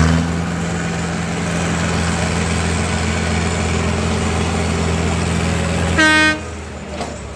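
Hanomag Brillant 600 tractor's diesel engine running steadily under heavy load as it drags a pulling sledge through mud. About six seconds in, a short, loud horn blast sounds, and right after it the engine noise drops off.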